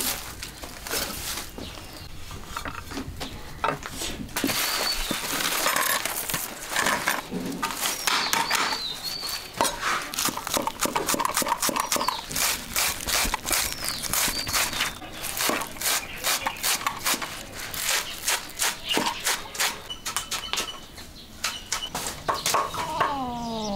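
Cleaver chopping green onions on a round wooden chopping block, a long run of quick, even strokes. A few short bird chirps come in now and then, and at the very end an animal call falls in pitch.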